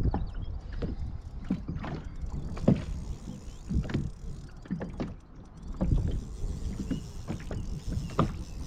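Water slapping and knocking against the hull of a small rotomoulded plastic boat in irregular, uneven strikes, over a steady low wind rumble on the microphone.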